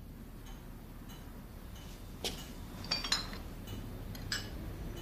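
A few light clinks of glassware, a glass and bottle being handled, spread through the second half.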